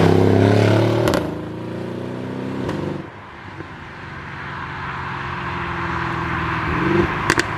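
Mercedes-AMG GLE 63 S Coupe's twin-turbo V8 exhaust, loud with a falling pitch for about a second, then dropping off sharply to a quieter engine sound that slowly grows louder again. A couple of sharp cracks come near the end.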